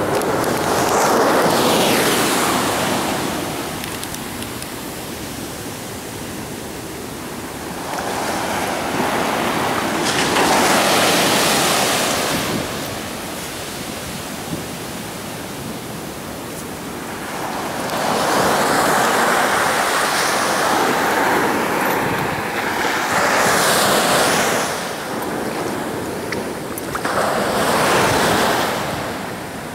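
Pacific Ocean surf: waves crashing and washing in, each one swelling to a loud rush and then ebbing away, in repeated surges several seconds apart.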